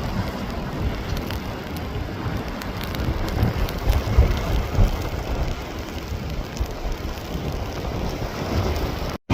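Storm rain and wind: a steady rush of rain with gusts buffeting the microphone and scattered drops ticking. It cuts off suddenly near the end.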